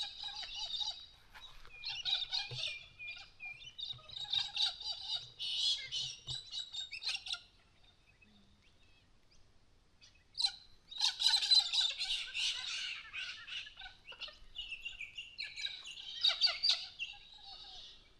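Wild birds chirping and singing in overlapping phrases. There is a pause of about three seconds around the middle, then the loudest calls come in.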